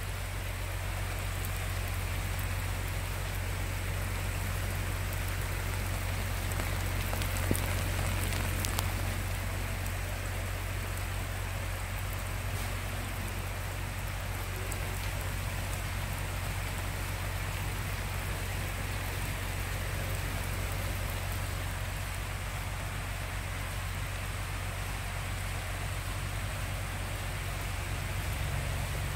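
Heavy rain falling steadily on garden crops and trees, an even hiss with a low rumble underneath; a couple of brief ticks about eight seconds in.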